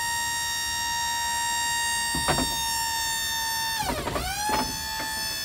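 Waltco liftgate's electric hydraulic pump motor running with a steady high whine. About two-thirds of the way through it winds down briefly and spins back up to the same pitch, with a few light clicks along the way.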